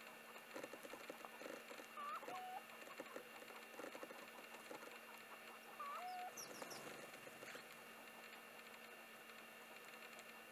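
Faint tapping of sparrows pecking at food on hard ground. A short two-note bird call, a quick curl then a lower held note, comes twice, about two and six seconds in, followed by a few faint high chirps.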